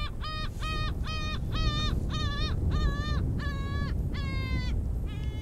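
A gull calling in a rapid series of about ten loud, nasal calls, about two a second, the last few drawn out and dropping in pitch, over a low rumble.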